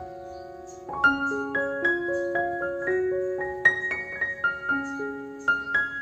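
Background piano music: a gentle melody of single struck notes. A held note lingers for about the first second, then new notes come in at an even pace.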